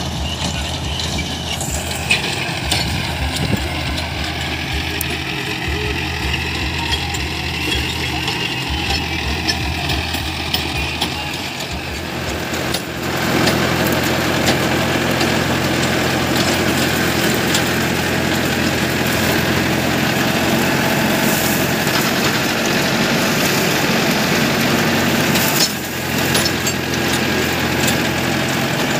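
Tractor engine running steadily, then growing louder about halfway through and staying up, with a brief drop near the end.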